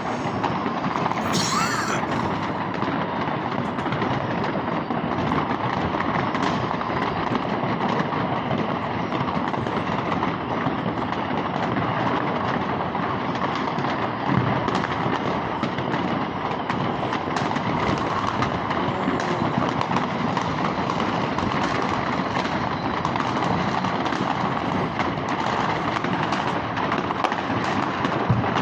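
Many fireworks going off all around at once: a steady, dense crackle of overlapping bangs and pops with no pause.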